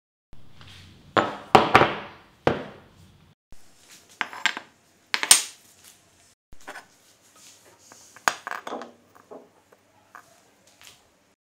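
Hand tools and metal parts being handled during restoration work, giving a run of irregular knocks and clinks with short ringing tails. The loudest come a little over a second in and about five seconds in.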